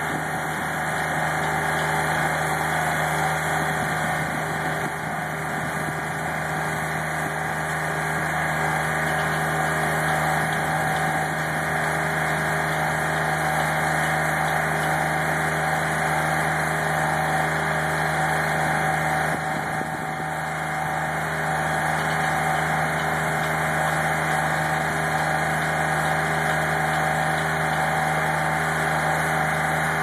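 On-board engine of a self-contained mobile conveyor running steadily with an even, unchanging hum as the remote-controlled conveyor moves itself.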